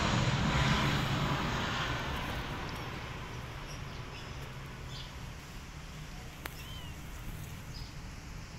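A passing engine's noise fading away over the first few seconds, then a quiet outdoor background with a few faint, short, high chirps and a single sharp click a little past the middle.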